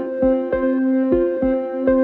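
Background music: plucked string notes picked about two to three a second over held notes.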